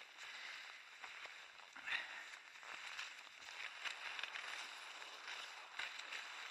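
Cross-country skis swishing along groomed classic tracks, the hiss swelling and fading in a steady stride rhythm of about once a second, with a few sharp clicks.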